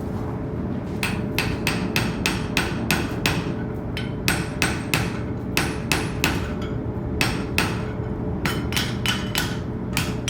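Blacksmith's hammer striking iron on an anvil, about two to three ringing blows a second in runs with short pauses, over a steady low rumble.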